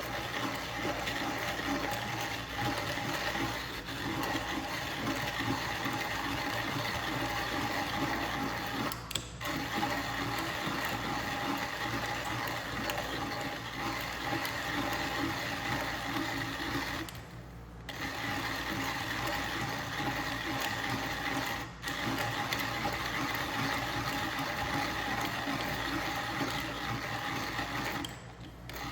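Fiorenzato Pietro hand-cranked coffee grinder grinding beans at a fine setting, under more resistance. The burrs crush continuously, stopping briefly about four times, once for about a second, as the cranking pauses.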